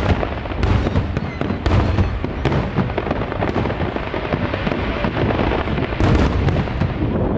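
Fireworks display: aerial shells bursting in the sky, several sharp booms standing out over a dense, continuous crackle.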